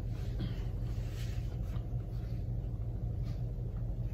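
A steady low hum, with a few faint soft clicks and rustles of chewing and a paper napkin wiping the mouth over it.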